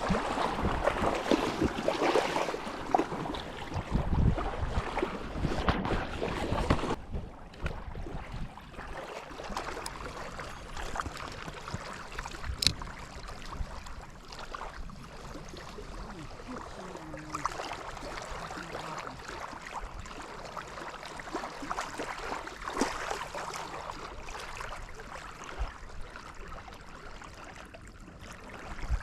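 Wind buffeting the microphone over lapping lake water, gusting hard for the first seven seconds and then settling to a steadier, quieter rush, with one sharp click about twelve seconds in.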